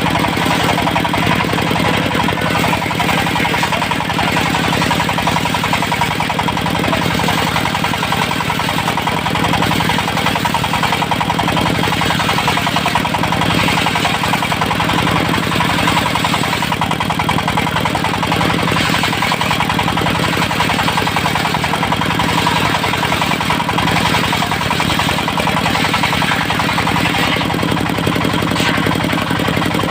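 Diesel engine of a portable circular sawmill running steadily, its blade sawing teak, with the sawing noise swelling a few times.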